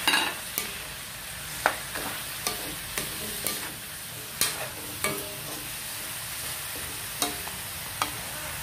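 Metal spatula clacking and scraping against a large metal wok while vegetables are stirred, about a dozen irregular knocks over a steady sizzle of frying.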